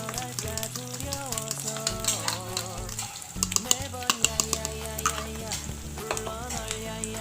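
Egg frying in hot oil in a pan of sausage and meatballs, sizzling while a spatula stirs and scrapes it. The spatula clacks sharply against the pan several times about halfway through. Background music plays.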